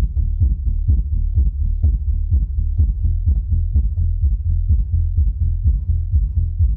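Sanway SUB9006AS active dual 18-inch subwoofer playing music, giving out only the deep bass: a sustained low rumble with a fast, regular thumping beat and almost nothing in the upper range.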